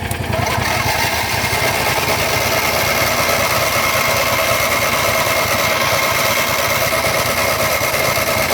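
Starter motor cranking the John Deere GT225's engine for about eight seconds with a steady whine, without the engine catching, which is the no-start fault. The cranking starts abruptly and cuts off near the end. Another engine idles underneath.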